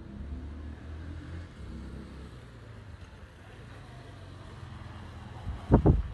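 Small Honda dual-sport motorcycle's single-cylinder engine running as it approaches and rides onto the driveway, with a brief loud burst of engine noise near the end.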